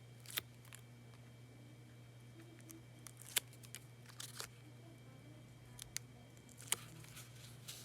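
Backing paper being peeled off small adhesive foam pieces: a few faint, scattered clicks and rustles over a steady low hum.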